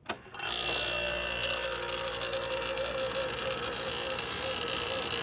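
A switch clicks, then a vintage GM Frigidaire window air conditioner starts on low cool, its fan and 1969 Tecumseh AK compressor coming on together and running steadily with a slightly wavering tone. A deep hum is strongest for the first couple of seconds, then eases. The owner puts the way it runs down to the compressor not yet being up to head pressure after sitting unused.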